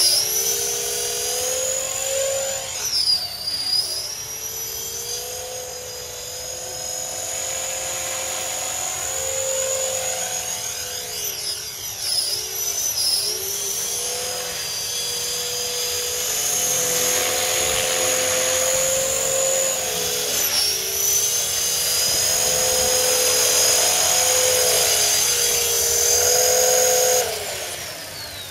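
KDS 450 electric RC helicopter in flight: a steady high whine from its motor and rotor, the pitch dipping briefly a few times. Near the end the sound fades away as the helicopter comes down.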